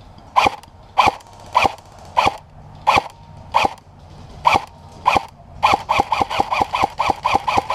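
Airsoft rifle firing single shots close by, each a sharp crack with a short metallic ring. Eight come slowly, about one every half second or so, then from near the end of the first two thirds the shots come faster, about four a second.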